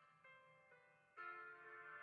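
Soft background music: gentle piano-like keyboard notes that change about every half second, growing louder a little past halfway.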